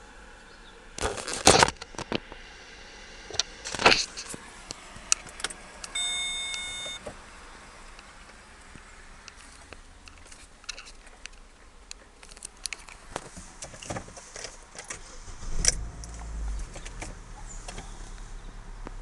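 Keys jangling and sharp handling clicks, loudest in the first four seconds, then a short electronic beep about six seconds in. Near the end the Opel Vectra C's 1.8-litre four-cylinder petrol engine cranks and fires, settling into a steady idle.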